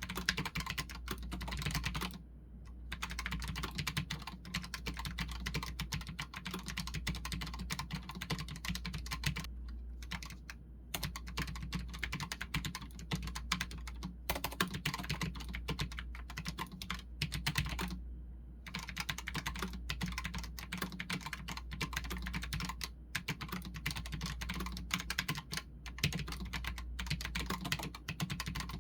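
Typing on a Redragon K618 Horus low-profile mechanical keyboard: a fast, dense stream of key clicks, broken by three short pauses, over a steady low hum.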